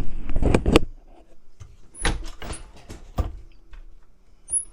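Mechanical clunks and clicks from a Can-Am UTV gear shifter being worked through its gates. The loudest knocks come in the first second, then lighter ones follow every half second to a second.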